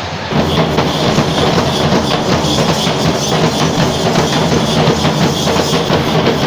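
Festival percussion ensemble: many drums beaten fast and densely, coming in abruptly just after the start.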